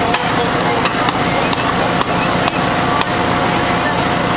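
Steady engine running with a constant whine, under crowd chatter, with irregular sharp clicks and scrapes as a firefighter works at a car's shattered windshield during vehicle extrication.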